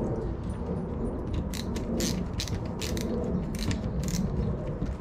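Ratcheting hand screwdriver clicking in several short bursts as it drives screws into a door strike plate.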